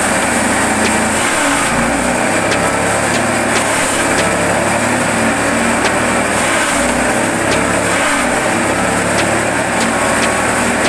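Grass chopper machine running steadily, with irregular sharp ticks as leafy branches are fed through its blades.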